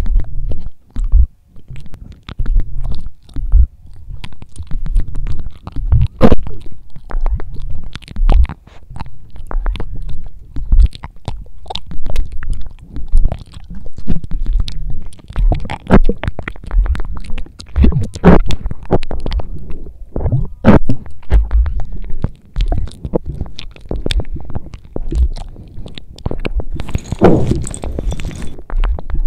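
Close-miked, amplified eating: an irregular run of crunches, clicks and low thumps from chewing and handling food. Near the end comes a brief noisier rush.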